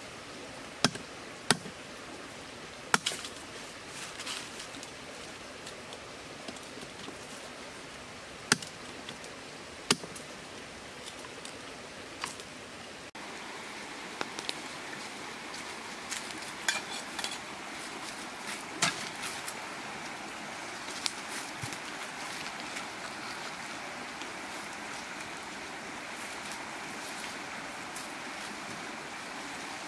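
A stick digging and scraping into dry soil and leaf litter at the foot of a tree, with a few sharp knocks, over a steady outdoor hiss. About a third of the way in the hiss steps up a little and scattered small clicks and rustles follow.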